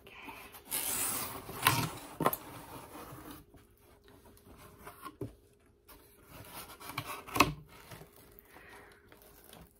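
A corrugated cardboard mailer box being opened by hand: its flaps rub and scrape, with a couple of sharp cardboard snaps about two seconds in and another near the end.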